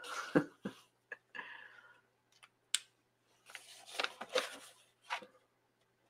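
Light desktop handling noises: scattered clicks and knocks as pens and a sketchbook are handled, with soft paper rustling twice as a sketchbook page is lifted and turned.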